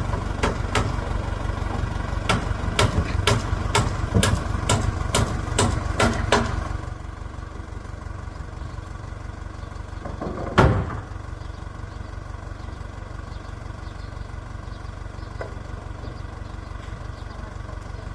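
An engine running steadily at idle, a low hum, with a quick run of about a dozen sharp knocks over the first six seconds and one heavier knock about ten seconds in.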